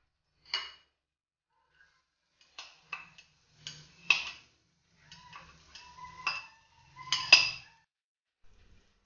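Metal spatula and a ceramic bowl clinking and scraping against a glass frying pan as chopped vegetables are tipped in and stirred: a string of sharp clinks with a short ring, loudest about four and seven seconds in.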